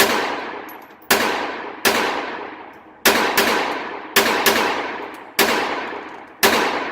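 Phoenix Arms .22 LR semi-automatic pistol firing about nine shots at an uneven pace, some in quick pairs. Each sharp crack trails off in a long echo.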